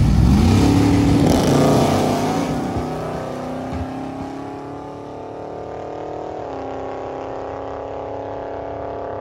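Two drag-race launches one after the other. The Chevelle's engine is loud at first and rises in pitch as it pulls away down the strip. Then the OBS pickup truck launches with its engine at high, steady revs as it spins the tires, and the note steps up in pitch about six and a half seconds in.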